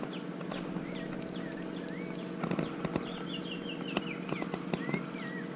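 Birds chirping and trilling in quick repeated notes over a steady low hum, with scattered sharp clicks.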